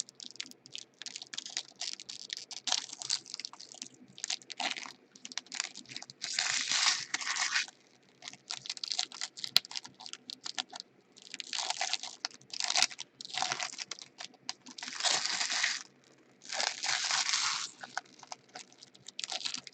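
Packaging wrapper crinkling and tearing in several rasps of about a second each, with scattered light clicks and handling noise in between.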